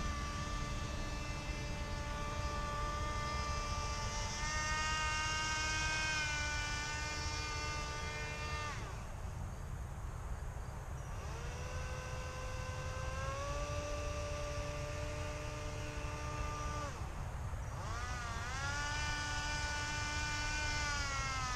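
Whine of a homemade RC boat's small electric motor spinning an airplane propeller, its pitch following the throttle: it steps up about four seconds in, dies away about nine seconds in and again about seventeen seconds in, and climbs back each time.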